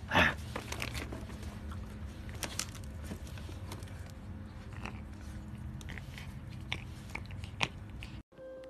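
Pet raccoon play-biting and gnawing on a person's hand: scattered small chewing clicks and crunches. A short loud sound comes right at the start.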